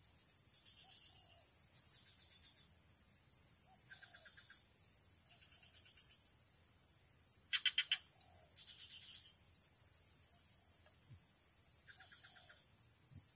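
Faint outdoor wildlife chorus: short pulsed trills, each under a second, repeat every second or two, with the loudest about halfway through, over a steady high insect hum.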